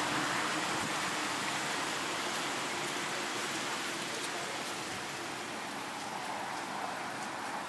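Steady hiss of background noise with no distinct events, fading slightly toward the end.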